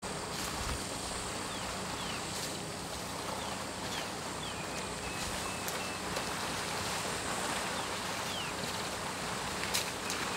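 Outdoor ambience: a steady rushing noise, with short, falling bird chirps scattered through it and a sharp click near the end.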